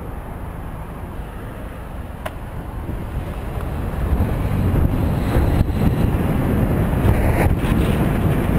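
Wind rumbling on the camera microphone as the bike picks up speed, growing louder from about three seconds in.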